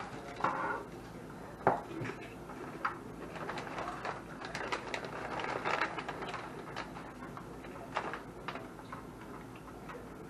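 Irregular clicks, taps and rustling from the plastic parts and packaging of a ring light and its small tripod being handled, with one sharper knock about two seconds in.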